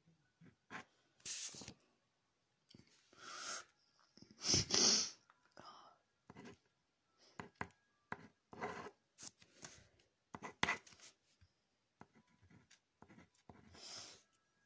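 Pencil scratching on paper in short, irregular strokes as drawings are crossed out and a word is written, with a louder rustling burst about five seconds in.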